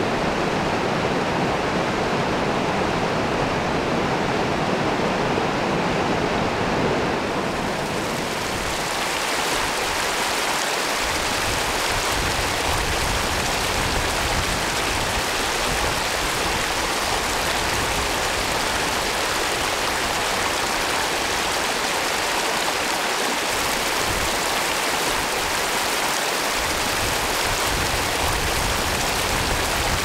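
Steady rush of flowing water: a river running among rocks, then hot-spring waterfalls pouring over rock and splashing into a pool. About eight seconds in the sound turns brighter and hissier.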